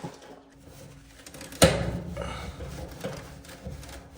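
Hands handling parts and tools: a sharp knock about one and a half seconds in, then rustling and small clatters.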